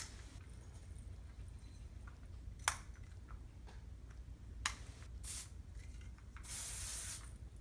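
Clicks from the nozzle lock of a Kenra Ultra Freeze aerosol hairspray can, then a short hiss of spray lasting under a second near the end.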